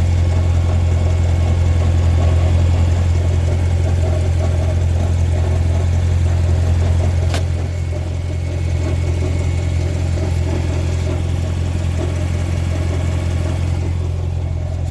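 Grand Sport car idling with a steady low drone, heard from under the car, with an unidentified noise that the owner places in the middle of the car. A single sharp click comes about seven seconds in.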